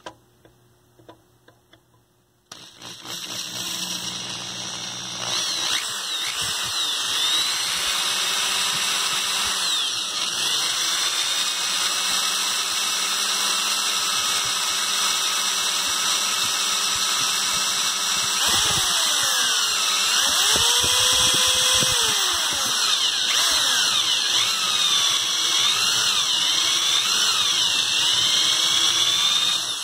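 Power drill boring a pilot hole into a TV's steel chassis. It starts about two and a half seconds in and runs steadily, with a wavering high whine from the bit. The bit is struggling in hard metal and overheating without cutting oil.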